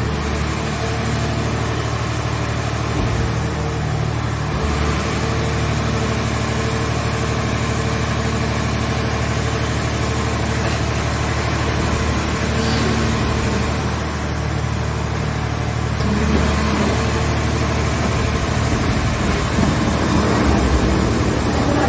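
The engine and hydraulic drive of a mobile car-shell baler running steadily. Over the low hum is a thin high whine that sags in pitch and recovers twice.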